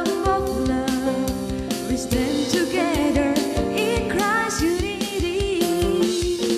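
A woman singing a melody with vibrato into a microphone, backed by a Roland RD-700 stage piano and an electronic drum kit keeping a steady beat.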